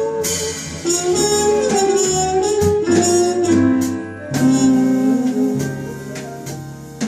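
Live small-group jazz: a horn melody over walking bass and drums, with cymbal strokes, getting a little softer near the end.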